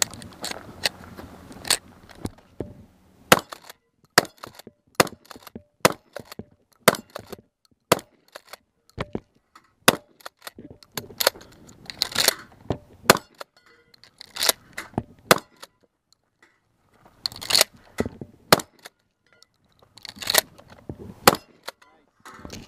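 Remington 870 pump-action 12-gauge shotgun fired a dozen or so times in a stage run, with the sharp clack of the pump being racked between shots.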